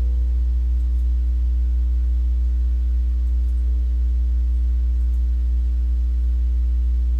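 Background music in a slow, held passage: a steady deep drone with faint sustained tones above it, without distinct notes or beat.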